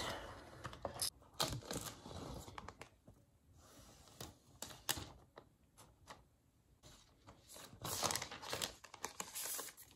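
Screen protector packaging and film rustling and crinkling as they are pulled out and handled, with scattered light clicks and taps of handling against the tablet and desk.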